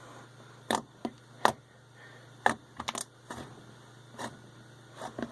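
Butter slime being squeezed and poked by hand, giving off irregular sharp clicks and pops, about eight of them.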